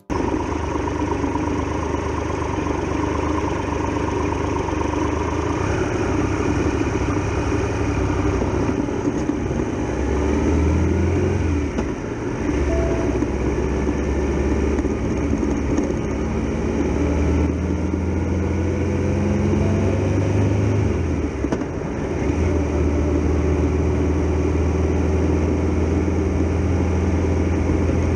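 Triumph Tiger Explorer XRx's 1215 cc three-cylinder engine running while under way, with steady wind rush. The engine note eases off briefly twice, near the middle and about three quarters in, then picks up again.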